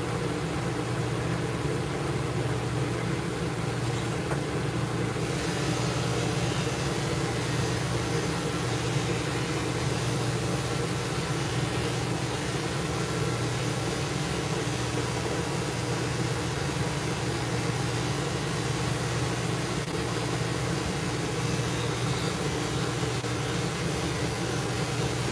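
Steady machine hum with an even fan-like rush inside a mobile grooming van; the high hiss gets stronger about five seconds in.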